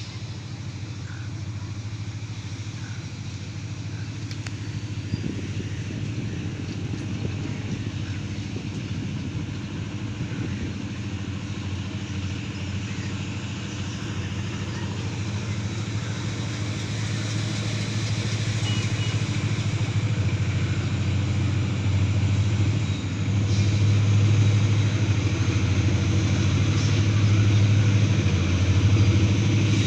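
Caterpillar-engined diesel locomotive running with a steady low engine drone that grows louder as it approaches.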